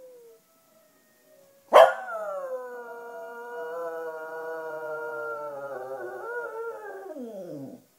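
Cocker spaniel howling: a short faint whine, then about two seconds in a sharp-starting howl held at a steady pitch for several seconds, wavering and sliding down in pitch as it ends.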